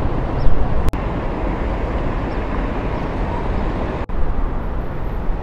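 Steady hum of street traffic, with two brief dropouts about one second and four seconds in.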